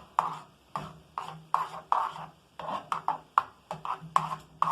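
A utensil stirring thick sauce in a pan, scraping against the pan in quick regular strokes, about three a second.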